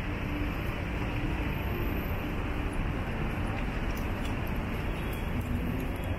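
Steady street traffic noise: vehicle engines humming and tyres on the road, with no single sharp event.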